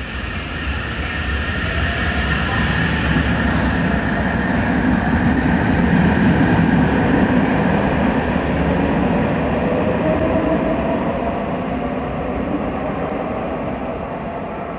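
A limited express electric train pulls out and accelerates past, with wheel-and-rail rumble and a rising electric whine. The noise builds to its loudest about halfway through, then fades as the train draws away.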